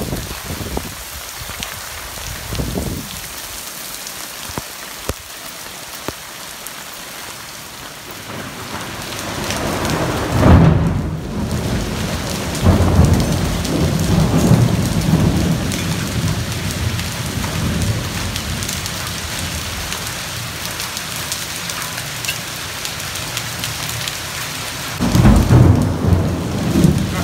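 Thunderstorm: heavy rain pouring steadily, with a roll of thunder that breaks loudly about ten seconds in and rumbles on for several seconds, and another rumble of thunder near the end.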